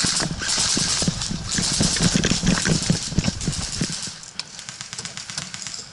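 A person running in quick footsteps, with gear and clothing rattling and rustling at each stride, easing off about four seconds in.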